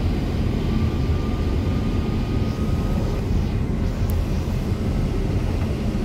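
Cabin noise inside a Caio Mondego II articulated city bus on a Volvo B8RLEA chassis under way: a steady low engine drone and road rumble. A faint thin whine rises above it for about two seconds, starting about a second in.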